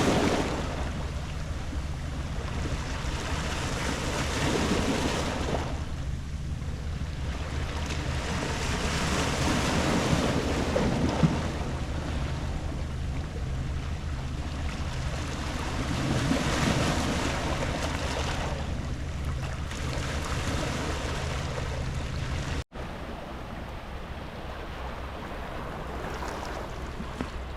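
Sea waves washing in and out on a pebble beach, the surf swelling about every five to six seconds over a steady low hum. The sound cuts out for an instant about two-thirds of the way through and comes back a little quieter.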